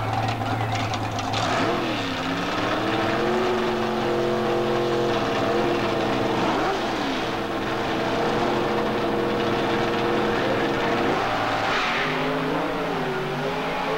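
Pro Mod drag cars' V8 engines running hard, the engine note dipping about two seconds in and again near seven seconds, then falling near the end.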